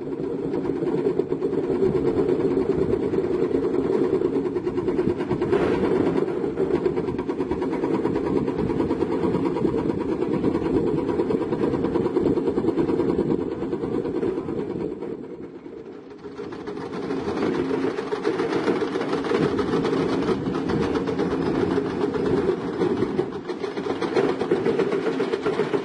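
Heavy diesel construction machinery running steadily with a low drone and some clatter. The sound dips briefly about two-thirds of the way in, then returns with more hiss and rattle.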